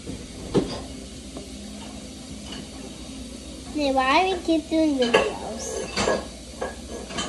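A few sharp clicks and knocks of a knife against a wooden cutting board as a loaf of banana bread is cut. A high voice gives a drawn-out sound of rising and falling pitch about four seconds in.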